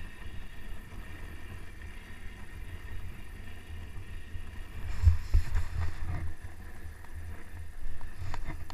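Dog sled running over packed snow: a steady rumble and scrape from the runners and sled frame, with a few louder bumps about five seconds in.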